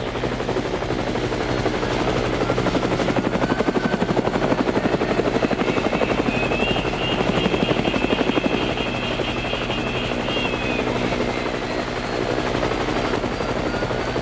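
Toy helicopter running with a fast, steady rotor chop over a low hum, most pronounced in the middle. A warbling electronic tone sounds alongside it for a few seconds midway.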